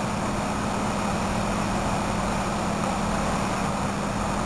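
A vehicle engine running steadily, a constant low hum under an even hiss, with no change in pitch or level.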